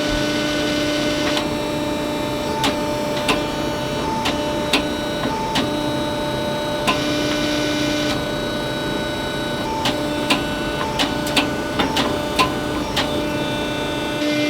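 A steady machine hum with several fixed tones, some cutting in and out, broken by about a dozen irregular sharp ticks.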